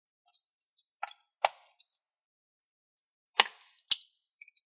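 Slime and putty containers being handled: a few faint ticks, then sharp hard clacks and knocks. The loudest come about a second and a half in and again twice near the end.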